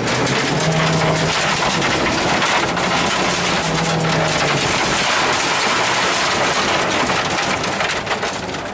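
Rally car at speed, heard from inside the cabin: a dense rattling hail of gravel and stones hitting the underbody over the engine running hard, its note coming and going.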